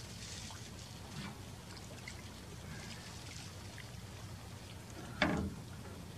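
Water lapping and trickling around a moored boat's hull over a steady low rumble, with one short loud bump about five seconds in.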